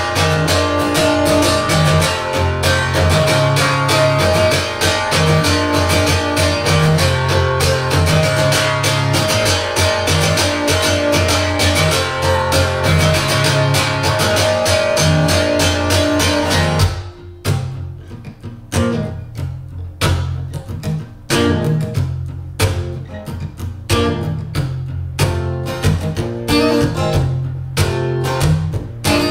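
Acoustic guitar strummed hard and fast with no voice. About 17 seconds in it drops suddenly to quieter, sparser strokes.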